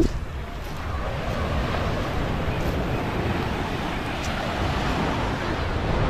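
Steady wind noise rumbling on the microphone over the even rush of waves on a beach.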